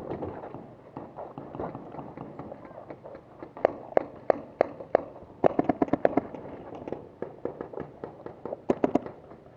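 Paintball markers firing in sharp pops. First comes a run of about five shots a third of a second apart, then a quicker burst of about eight shots a little past the middle, and a few more shots near the end.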